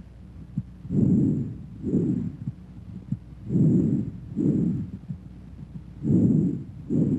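Bronchovesicular breath sounds heard through a stethoscope: three breaths, each a low rushing inspiration and an expiration of about the same length, with a short gap between them.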